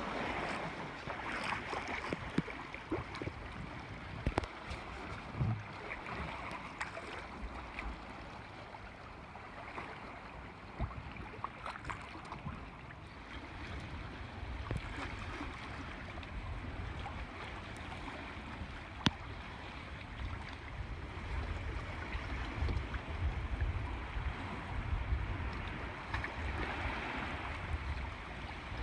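Water splashing and sloshing against the hull of a small sailing catamaran as it moves, with wind rumbling on the microphone, heavier in the second half, and a few sharp ticks.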